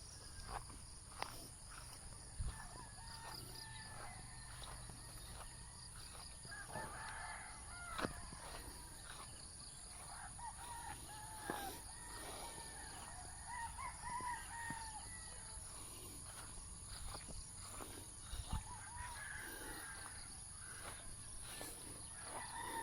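Chickens calling faintly now and then in short arching calls, with a few scattered clicks and knocks.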